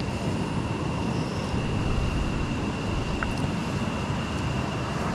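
Steady rushing outdoor noise of wind on the microphone and the shallow river, with a faint, thin high-pitched tone held throughout and one tiny tick about three seconds in.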